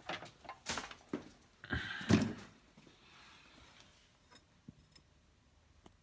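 A few sharp knocks and a short rattling clatter, loudest about two seconds in, followed by a few faint clicks.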